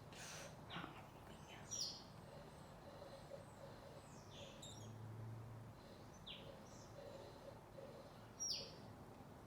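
Very quiet background with a few short, high bird chirps, each sliding down in pitch, scattered a couple of seconds apart; the clearest come about two seconds in and near the end.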